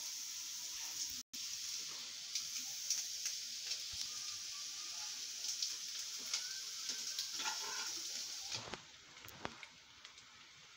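Semolina-coconut vadas shallow-frying in ghee in a pan: a steady sizzle with scattered light clicks of a metal utensil against the pan. The sizzle drops to much quieter about eight and a half seconds in.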